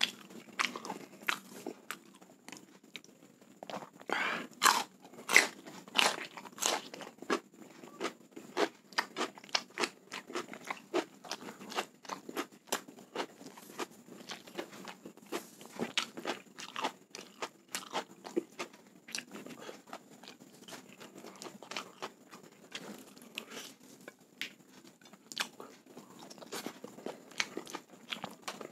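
Close-up crunching bites and chewing of raw cucumber, with the loudest crunches about four to seven seconds in, followed by many shorter chewing crunches.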